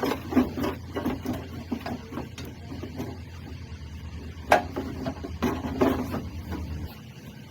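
Hand tools working on engine parts: a string of irregular metallic clicks and knocks, with a sharp knock near the start and another about four and a half seconds in, over a low steady hum that stops near the end.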